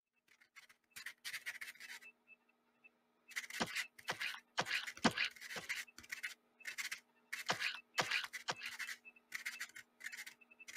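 Pencil scratching on paper on a clipboard in quick, irregular strokes, starting about a second in, over a faint steady hum.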